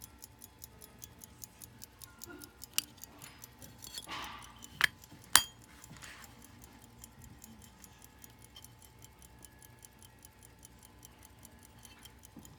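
F. Jacob Matile 13-jewel key-wind lever pocket watch movement ticking steadily, about five ticks a second. A few louder clicks and a brief rustle break in near the middle.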